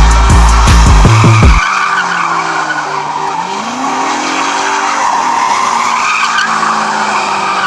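Music with a heavy sliding bass line that cuts out about a second and a half in, followed by a car's tyres squealing in a skid over a revving engine.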